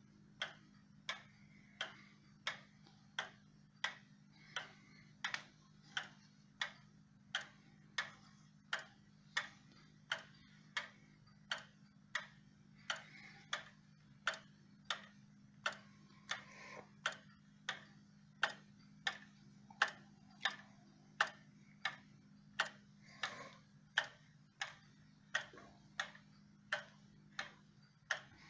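Time-only movement of a 1920s Sessions Salem model banjo wall clock ticking steadily as its pendulum swings, about three ticks every two seconds, over a faint steady low hum.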